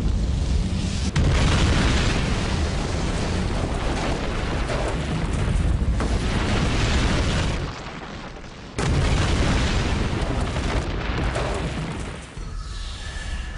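Dramatised deep rumble and roar of a stricken Boeing 737-400 airliner coming down, in two long surges; the second cuts in suddenly about nine seconds in after a short lull. Music swells in near the end.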